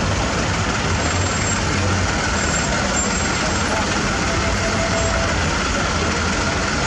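A truck engine running steadily with a low rumble, and voices in the background.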